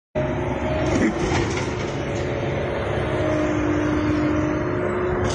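Vehicle engine running steadily and loudly, a dense low rumble with a few held tones and no revving.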